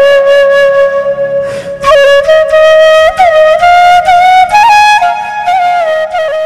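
Background music: a solo flute melody with sliding ornaments between notes, a short break about one and a half seconds in, and starting to fade near the end.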